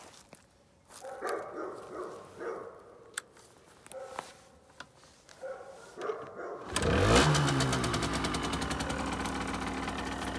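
The Aprilia SX 50's 50 cc single-cylinder two-stroke engine starts about two-thirds of the way in. It catches at once, flares briefly, then settles into a steady idle.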